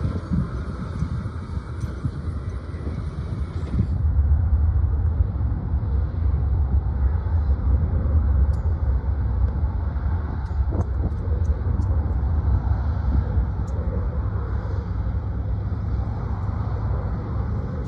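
Heavy diesel earthmoving machinery running for the first few seconds; then, after a cut, a jet airliner on approach, heard as a steady low rumble.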